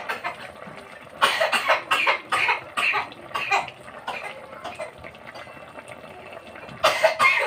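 A person coughing in a run of short bursts about a second in, then again near the end.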